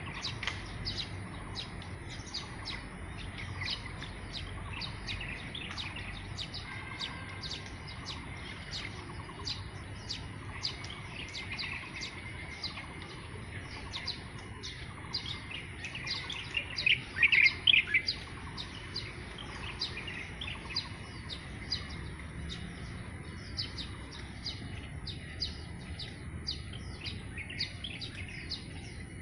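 Many birds chirping, short sharp calls following one another several times a second, with a louder burst of calls about seventeen seconds in. A steady high insect drone runs underneath.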